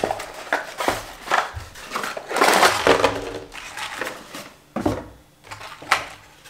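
A cardboard box being opened and packaged fishing tackle pulled out and laid on a wooden desk: rustling cardboard flaps, crinkling blister and bag packaging, and a few sharp knocks.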